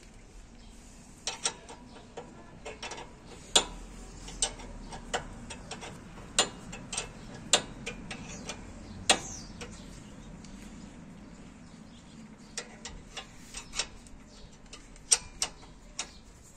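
Wrench clicking and clinking on brake caliper bolts in short, uneven strokes as the bolts are tightened.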